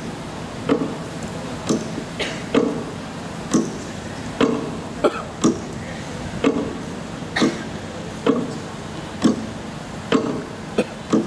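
Sharp knocks or claps repeating at about one a second, some in quick pairs near the end, over a steady background hiss.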